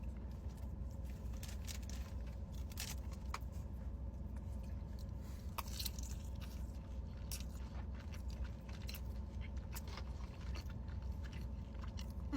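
A person chewing and biting cheesy bread close to the microphone, with scattered crisp clicks throughout, over a steady low hum.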